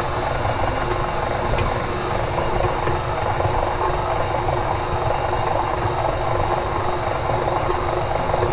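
Electric stand mixer running steadily, beating flour, powdered sugar and vegetable shortening as the mix starts to clump into larger lumps on its way to a dough.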